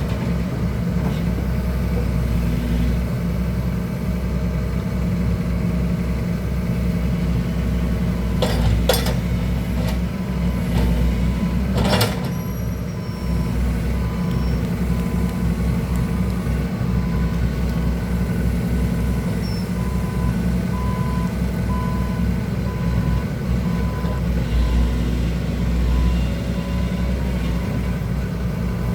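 Diesel engine of a training excavator running steadily, with sharp knocks about nine and twelve seconds in. A faint repeated beep sounds through much of the second half.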